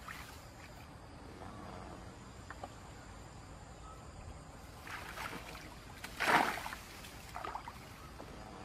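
Shallow muddy water splashing and sloshing as a wicker plunge-basket fish trap is worked into it by hand, with two short splashes a little after five and about six seconds in, the second the louder, and a smaller one near the end.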